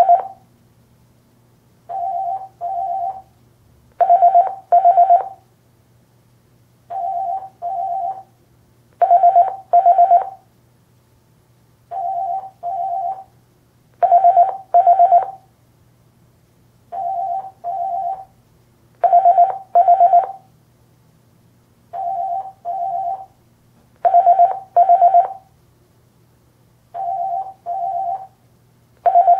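Electronic office telephone ringing with a warbling double ring: two short trills together, repeating about every two and a half seconds. The pairs alternate between louder and softer.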